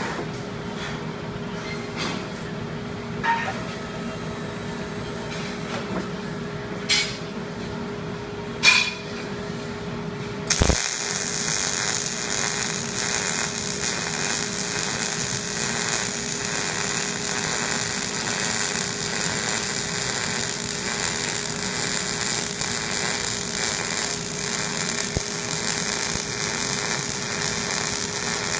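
A steady hum with a few sharp clicks, then, about ten seconds in, an electric welding arc strikes and crackles steadily with a loud, even hiss.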